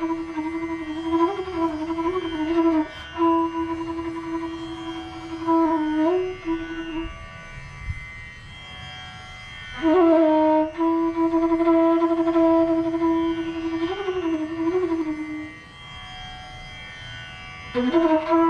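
Bansuri (bamboo transverse flute) playing slow phrases of raag Patdeep: long held notes with sliding ornaments, broken twice by pauses of a couple of seconds, over a faint steady drone.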